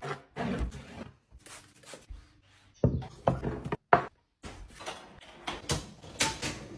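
Knocks, clicks and rustles of containers and packages being handled and set down, with two sharp knocks about three and four seconds in.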